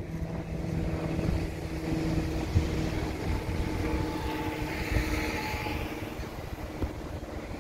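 Propeller plane flying overhead: a steady engine drone.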